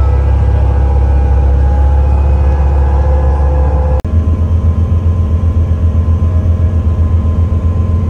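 Speedboat engine running, a loud steady low drone. About halfway through it changes abruptly to a low drone that throbs rapidly.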